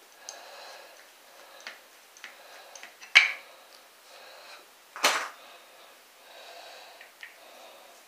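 Grease gun being worked to pump grease into a bicycle rear-wheel hub: a few light clicks, then two louder strokes about three seconds in and again about two seconds later.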